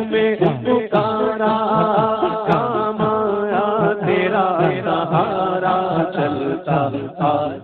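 Man singing a manqabat, an Urdu Sufi devotional song, into a microphone, with melodic lines that bend and glide over a steady low drone.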